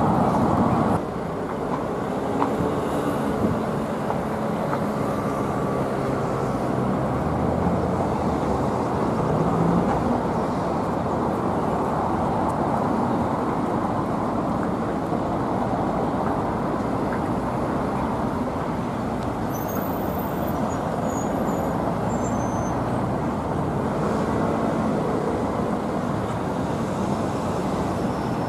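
Steady noise of heavy city traffic: the engines and tyres of cars, vans and buses moving slowly along a busy avenue. The level drops slightly about a second in, and no siren stands out.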